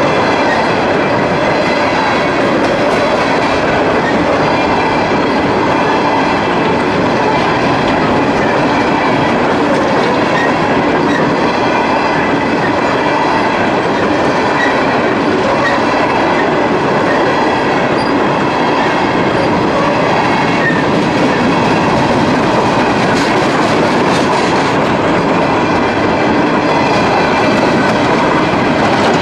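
Empty CSX coal train's steel hopper cars rolling past at close range, a loud, steady run of wheel and car noise on the rails.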